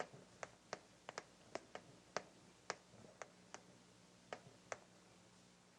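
Faint, irregularly spaced sharp clicks or taps, about a dozen in the first five seconds, over low room tone.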